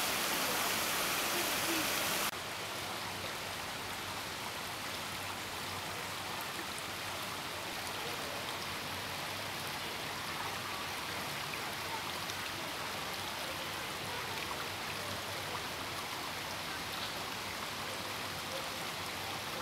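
Water of a small stream splashing over low rocky cascades, a steady rushing hiss. About two seconds in it drops suddenly to a quieter, steady flow.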